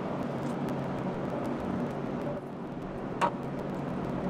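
Steady engine-like hum in the background, with a single sharp click about three seconds in as a plastic wiring connector is handled.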